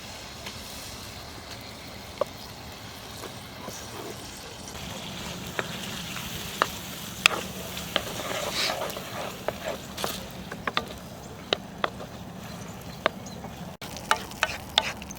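Food sizzling in a pan over a campfire, with a utensil stirring, scraping and tapping against the pan in sharp clicks. The sizzle gets louder about five seconds in, and the taps come quicker near the end.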